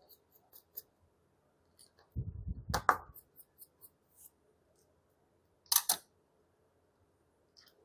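Small repair tools and iPhone 6 parts being handled during disassembly for a home button swap: scattered light ticks, a low bump with a click between two and three seconds in, and a sharp, loudest click about six seconds in.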